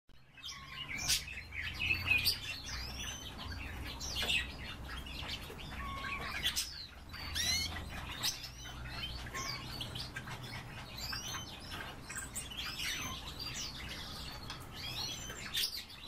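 Caged canaries chirping and calling: many short, quick chirps that glide up and down, overlapping at an uneven pace.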